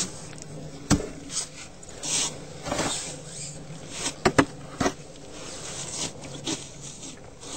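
Snow shovel scraping and knocking as snow is cleared: short scrapes and several sharp knocks at irregular intervals, over a faint steady low hum.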